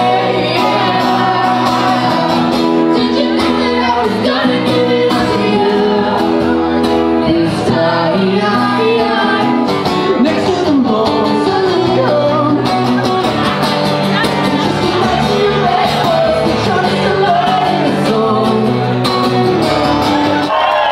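A live band playing a song with a lead singer, acoustic guitar and drums.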